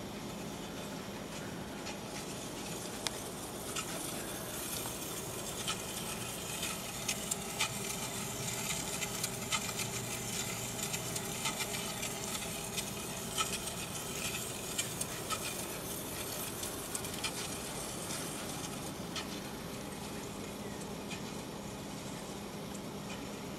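A steel block rubbing on a spinning circular saw blade in a homemade friction tester. It gives a steady scraping hiss with scattered small ticks and clicks that grows louder over the first few seconds, is strongest through the middle, then eases, all over a steady low hum from the drive.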